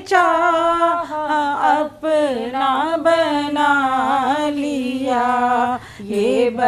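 A single voice singing an Urdu naat, a devotional song in praise of the Prophet, unaccompanied, in long held notes that waver and bend, with short breaths between phrases.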